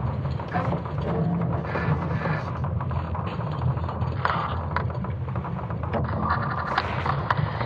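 Sonification of Earth's magnetic field during the Laschamp reversal 41,000 years ago: a deep steady rumble with creaks and scattered clicks, built from recordings of natural noises such as falling rocks and creaking wood.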